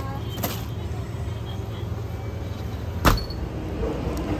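Glass door of a refrigerated drink cooler being handled, with a small click about half a second in, then a sharp knock about three seconds in as it shuts. A steady low rumble runs underneath.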